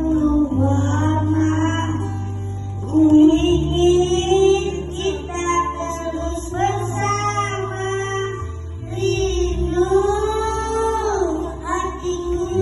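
A child singing a melody with long held, wavering notes over a musical accompaniment with sustained bass notes.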